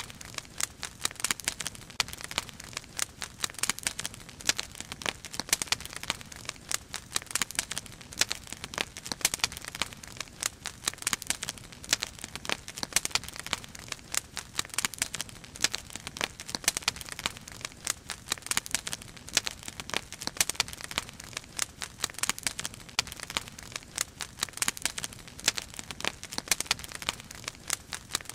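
Wood fire crackling in a steel fire basket: a dense, irregular run of sharp snaps and pops that never lets up.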